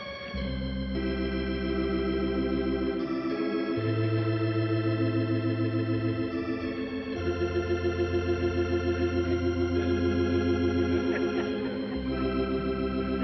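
Organ playing slow held chords over a sustained bass note, the chord changing every few seconds. From about seven seconds in the sound wavers in a fast, even tremolo.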